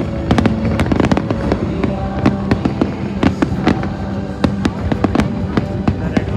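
A rapid run of fireworks bangs and crackles, several bursts a second, over the show's music soundtrack.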